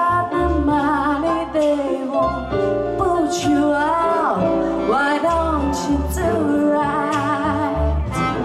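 Live jazz-blues number: a woman singing into a microphone, held notes wavering with vibrato, over a bass line.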